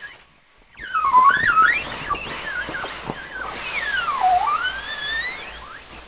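A brief click as the plug is pulled from the valve of a vinyl inflatable bunny, then air rushing out of the open valve as the toy is squeezed. The rushing air whistles, its pitch sliding up and down, and it fades near the end as the bunny goes flat.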